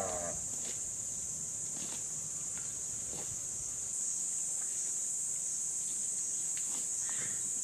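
Steady high-pitched insect drone, with a few faint ticks scattered through it.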